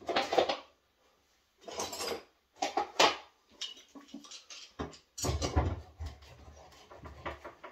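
Steel bar clamp being handled: short metallic rattles and clicks as its sliding jaw is moved, then heavier knocks and thuds about five seconds in as it is set and tightened onto the edge of a shelf board.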